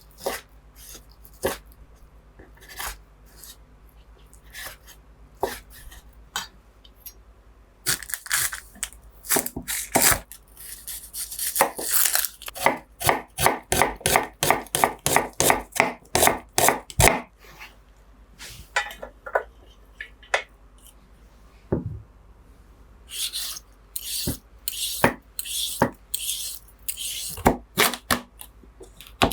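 Kitchen knife cutting food on a cutting board: a few scattered knocks at first, then a quick even run of chops at about three or four a second, and later more strokes with a scraping hiss.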